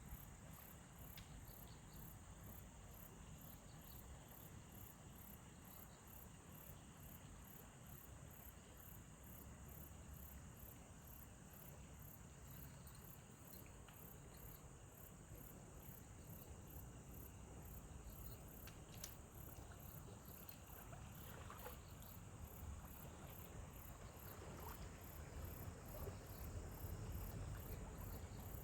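Insects, likely crickets, chirping faintly in a steady, very high pulsing rhythm of about one and a half pulses a second, over a continuous high trill. A low rumble of wind or water grows near the end.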